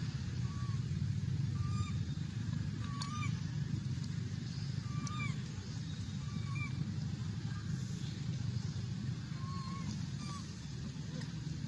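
Baby macaque crying: a series of short, high, squeaky calls, roughly one a second with gaps, over a steady low rumble.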